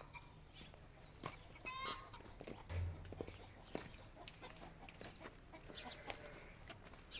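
Chickens clucking faintly, with a few short calls and scattered clicks, and a brief dull low thump just under three seconds in.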